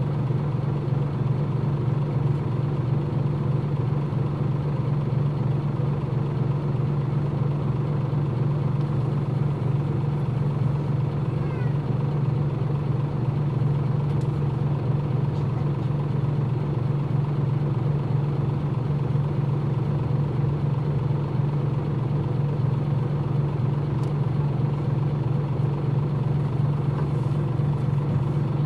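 Nissan Diesel KL-UA452MAN city bus's diesel engine idling steadily at an even pitch, heard from inside the bus.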